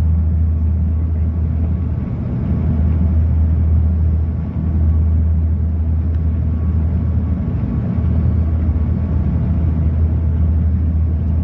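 Cabin noise inside a De Havilland Dash 8 turboprop on approach: a loud, steady low propeller drone with engine rumble, dipping briefly in level a couple of times.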